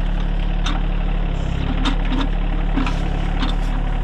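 Rural King RK24 compact tractor's engine running steadily at idle, with a few short metallic knocks scattered over it.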